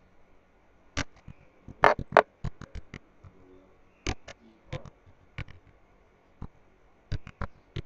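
Computer keyboard keys clicking as a short phrase is typed: single sharp clicks and quick little runs of keystrokes at an irregular pace, with pauses between words.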